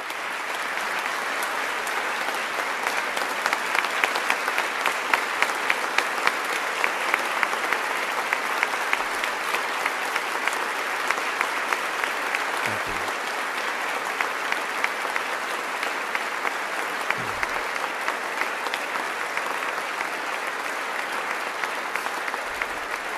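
Large audience applauding, a long, steady round of many hands clapping.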